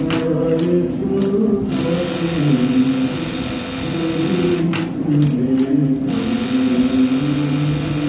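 Brother HE-800A electronic buttonhole sewing machine sewing, with two short runs of stitching clatter, one at the start and one around five seconds in. The machine is running through its cycle after the error 62 hang was cured by raising a parameter setting.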